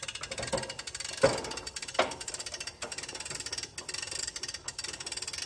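A ratcheting hand winch being cranked to lift a boat lift, giving a fast, even run of clicks from its pawl. Two louder metal knocks come about one and two seconds in.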